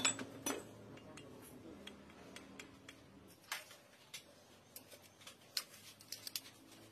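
Scattered light clicks and taps of small metal engine parts and hand tools being handled, irregular, with the sharpest ones about half a second, three and a half seconds and five and a half seconds in.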